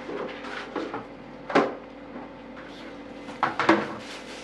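A thin plastic freezer bag being handled and pulled open: light rustling with a few sharp crackles, one about a second and a half in and two close together near the end.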